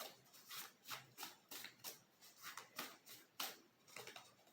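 Tarot cards being handled and drawn from the deck: faint, irregular soft flicks and rustles of card stock, several a second.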